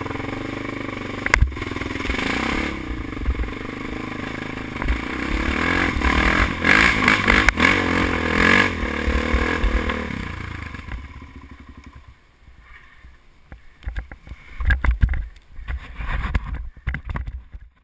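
2003 Kawasaki KFX 400 quad's single-cylinder four-stroke engine running under throttle on a dirt trail, revving harder about six to nine seconds in. After about twelve seconds the engine fades, and loud, irregular thumps take over.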